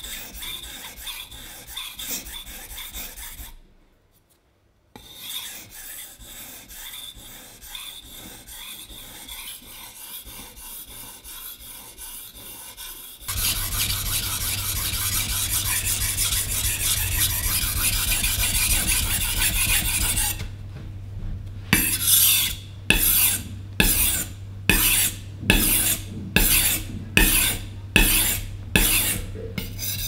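Kitchen knife being sharpened on the 2000-grit side of a wet 2000/5000 combination whetstone, the blade rasping across the stone. Near the end comes a steady run of about a dozen back-and-forth strokes, a little over one a second.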